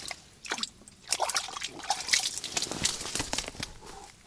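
Water splashing and sloshing in a hole in the ice as a hooked fish thrashes at the surface and is lifted out on the line: a quick, busy run of splashes lasting a couple of seconds.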